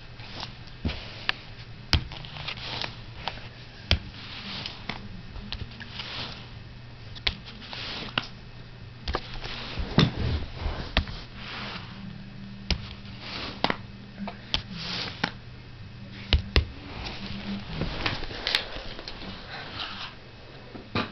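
Playing cards handled by hand, giving irregular sharp clicks, amid repeated short breathy hisses and a low steady hum.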